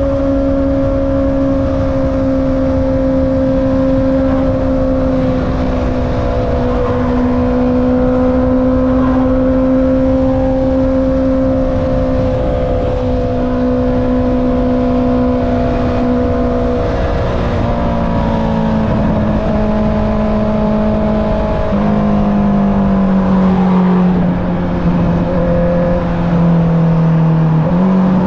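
Honda CB650R inline-four running through an Akrapovic exhaust while riding, holding a steady engine speed at first, then the revs ease down in steps over the last ten seconds, with a quick rise right at the end.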